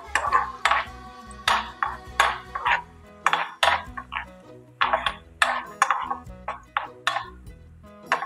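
Wooden spatula scraping and knocking around a nonstick pan while stirring cashews and raisins frying in ghee, in many short strokes, about two a second, over background music.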